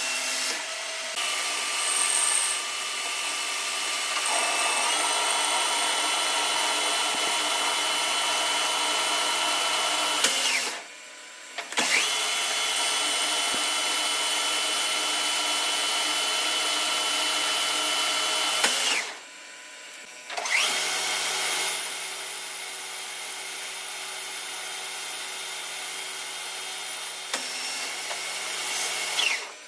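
Metal lathe running, its carbide turning tool cutting the outside of a spinning metal bar: steady machine whine with a hiss of cutting. It drops out briefly about a third and two-thirds of the way through, the whine falling as the spindle slows, and winds down again near the end.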